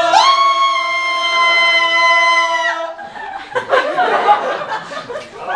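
Several voices holding one long sung 'aah' chord, like a mock choir fanfare, cut off about three seconds in. Laughter and chatter follow.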